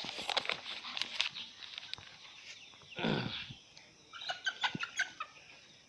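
Rustling and clicking at first, then about three seconds in a single short animal call that falls in pitch, followed by a few short high chirps.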